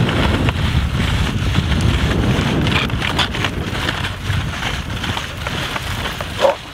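Wind buffeting the microphone over the rumble and hiss of a moving dog sled's runners on snow, with a few knocks around the middle and a brief pitched sound near the end.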